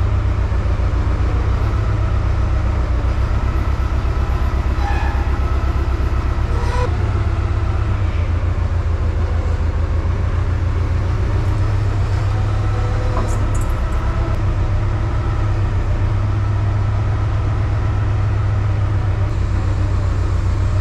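A vehicle's engine running at a steady speed, a heavy low drone with an even throb that does not change.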